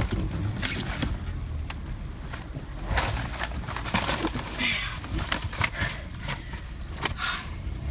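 A paper shopping bag rustling and crinkling as it is handled, in a run of irregular crackles and clicks.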